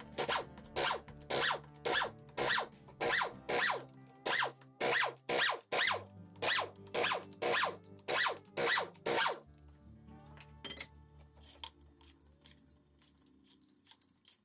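Air impact wrench undoing the 17 mm tension bolts of a Mazda RX-8 rotary engine, in quick short bursts about two a second, stopping about nine seconds in. After that, loose steel bolts clink lightly as they are gathered by hand. Background music plays underneath.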